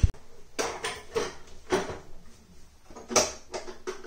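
A low thump, then a string of separate clacks and clinks: tools and the hard parts and cover of a moving-head stage light being handled as it is put back together.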